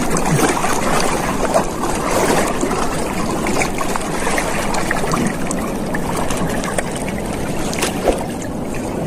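Sea water splashing and sloshing steadily, a loud rushing noise with scattered small clicks and splashes.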